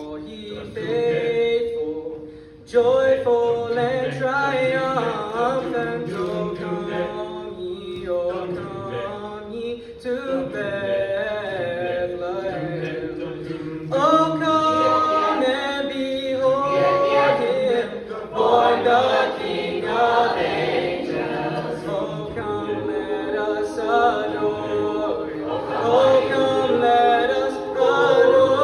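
Large mixed choir singing sustained chords. It breaks off briefly about two and a half seconds in, then comes back louder.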